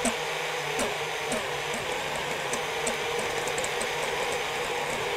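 FPV quadcopter's brushless motors whirring steadily at idle, heard close through its onboard camera, with light ticks every half second or so.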